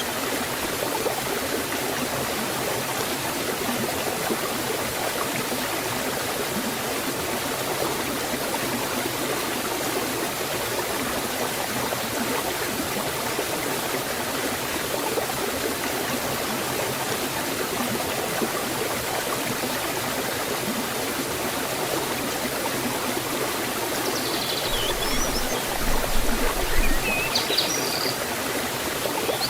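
Forest waterfall water flowing in a steady, even rush. A few short bird chirps come in near the end.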